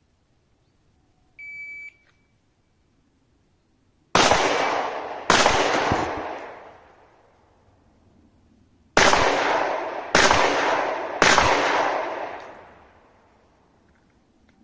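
A shot-timer beep, then pistol gunshots: two shots about a second apart, a pause of about three seconds, then three more at the same pace. Each shot has a long echoing tail.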